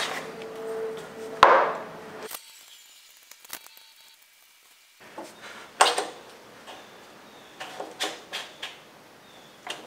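Hyperbeam bicycle headlight and its plastic handlebar clamp being handled and refitted, clicking and knocking against the handlebar. A sharp click about a second and a half in, another near six seconds, then a quick run of lighter clicks and taps near the end.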